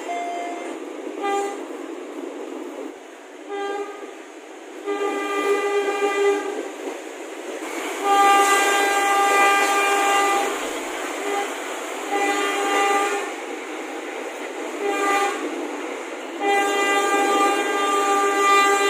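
Indonesian train horn sounding a series of blasts, some short and some long. The longest lasts over two seconds, about eight seconds in, and another long blast starts near the end.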